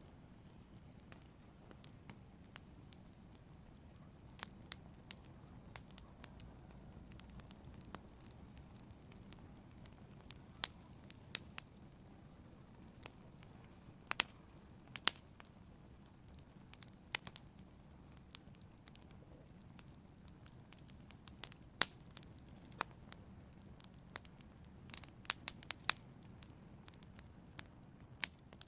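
Wood logs burning in a fireplace: a low steady hiss of the flames with irregular sharp crackles and pops, a few louder pops scattered through.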